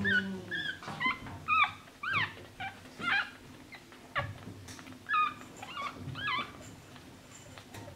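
Young Schnauzer puppies squeaking and whimpering: a rapid run of short, high-pitched squeals, many rising or falling in pitch, that dies away in the last second or so.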